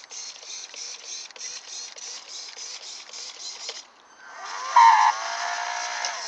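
Hairdryer fan motor running in an aluminium duct tube on a small RC foam boat, making a fast pulsing whirr of about five beats a second. It dips briefly, then rises into a louder, climbing whine as the motor is throttled up. The aluminium tube vibrates and amplifies the motor noise, so the sound is noisy.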